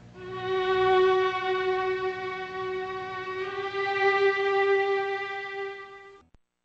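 Dramatic music sting that closes a scene: a single long violin note held steady for about six seconds, then cut off suddenly into silence.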